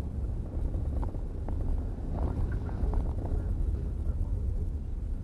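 Car interior driving noise: a steady low rumble of engine and tyres on a rough lane, heard inside the cabin, with a few light knocks between one and three seconds in.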